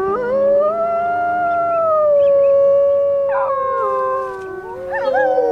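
Several Arctic wolves howling together. Two long howls overlap from the start, the higher one rising, holding and then sliding down. A short wavering call comes in about three seconds in, and more howls rise in and overlap near the end.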